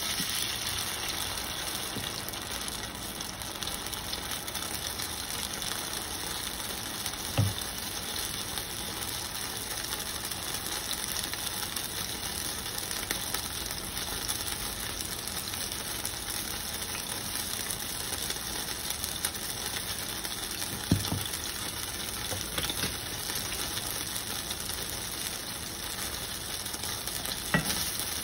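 Beaten eggs sizzling steadily in a hot cast-iron skillet, with a few light knocks, the last as a spatula starts working the eggs near the end.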